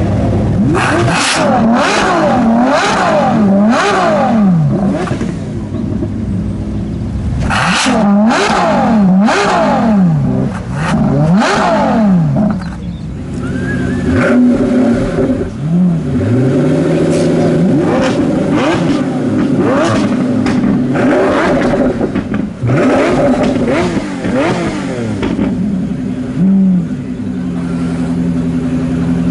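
Ferrari LaFerrari's V12 being revved in quick repeated blips, the pitch rising and falling sharply. About fourteen seconds in, a Pagani Huayra's twin-turbo V12 takes over, idling between blips of revs.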